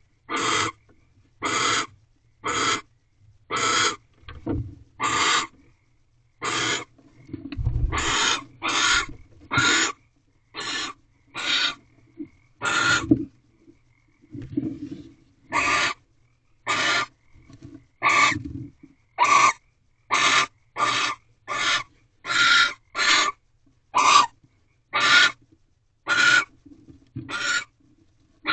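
Barn owl giving repeated hissing, rasping calls, about one a second, typical of the begging 'snore' call as prey is delivered at the nest box.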